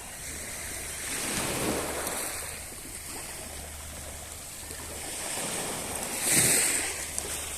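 Sea waves washing onto the shore: a swell of surf about a second and a half in and a louder wave breaking near the end.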